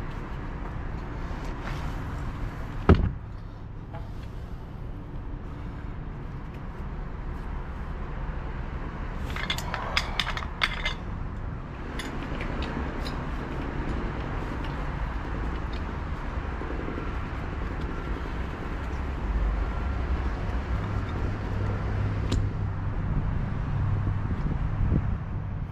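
A steady low rumble, with one sharp knock about three seconds in and a quick run of clicks around ten seconds in; the rumble grows stronger in the last few seconds.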